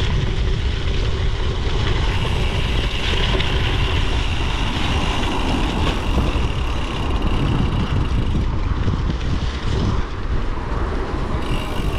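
Wind buffeting a GoPro Hero10's microphone while cycling, a steady low rumble mixed with tyre and road noise.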